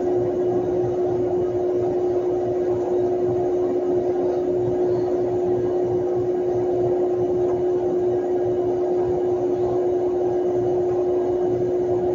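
A steady drone: one held tone over a rushing noise, with no change in pitch or level.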